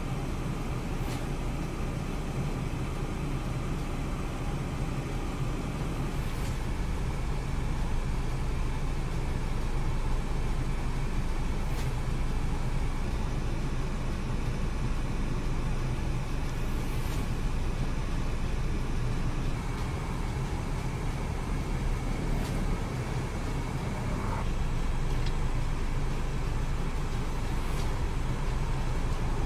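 Heavy tracked armoured vehicles' engines running, a steady low rumble and hum with no sudden events.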